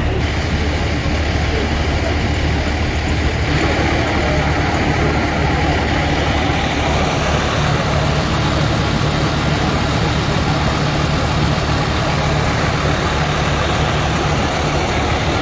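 Scania P320 fire pumper's diesel engine running steadily at the scene, a low even drone, with its hose lines charged and the pump in use.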